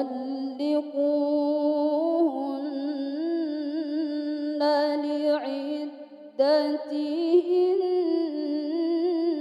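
A woman reciting the Quran in the melodic mujawwad style, holding long, ornamented vowel lines that waver in pitch. She pauses briefly a little past the middle, then resumes on a new held phrase.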